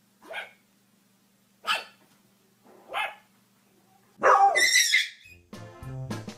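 Dog barking: three short, single barks spaced out, then a louder, longer outburst about four seconds in. Music starts near the end.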